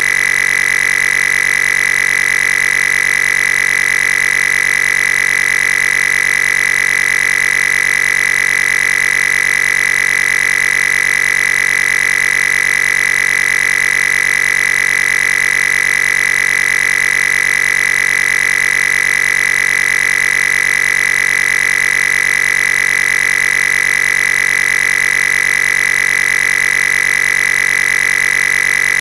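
A loud, unchanging electronic buzz with a strong high tone, identical from moment to moment: a fault in the audio signal rather than a sound in the room.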